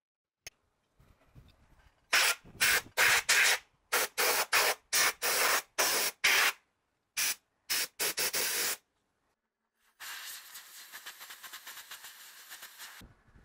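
About a dozen short, sharp spray hisses in quick succession, a few a second, then a steady hiss for about three seconds that stops abruptly.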